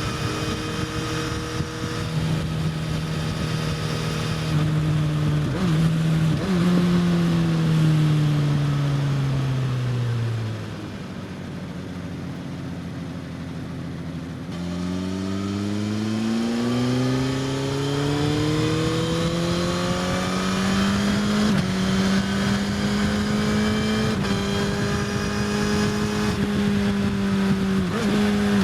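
Suzuki GSX-S1000's inline-four engine through an Austin Racing slip-on exhaust, heard from onboard. It holds high revs, gives two quick blips as it is shifted down and slows, then falls to low revs and goes quieter. About halfway through it accelerates hard with a steeply rising pitch through a gear change and holds high revs again.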